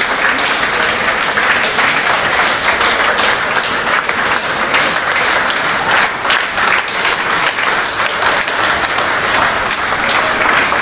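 Many people clapping hands in steady, sustained applause: a line of police officers and railway staff applauding on a station platform.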